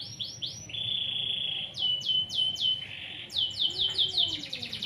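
Domestic canary in full, continuous song: phrases of repeated high, falling whistled notes, with a steady buzzy trill about a second in and a faster run of notes near the end.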